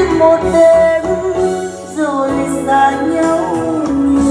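A Vietnamese bolero song, with singing over instrumental backing, played from a USB stick through a 6P3C valve amplifier and Onken-style wooden cabinet speakers.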